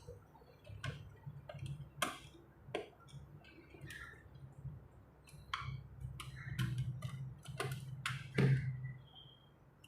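Irregular light clicks and taps of a plastic digital multimeter being handled while its battery compartment is opened, over a low steady hum.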